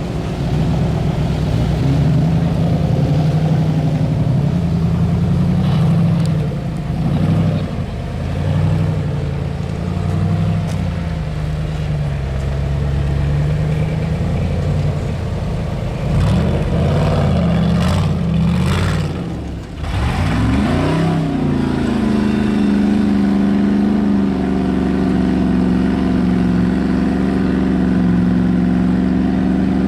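Off-road vehicle engine working hard, its revs rising and falling repeatedly as the throttle is blipped. About two-thirds of the way through, after a short dip, it rises and is held at steady high revs.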